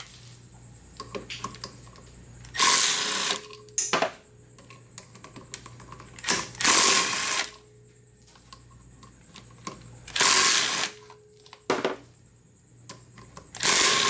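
A handheld power tool on a long extension spinning out the four 5/16-inch bolts that hold the plastic cooling fan to the scooter's flywheel: four short runs of under a second each, about three and a half seconds apart, with a short knock after two of them.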